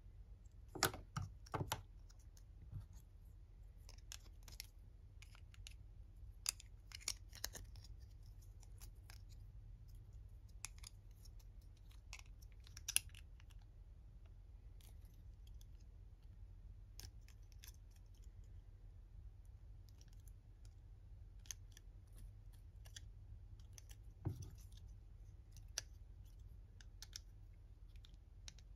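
Small hard-plastic toy parts clicking and tapping as fingers handle them and snap white sign pieces into a green plastic stand. Scattered light clicks, with a cluster about a second in and the sharpest click near the middle.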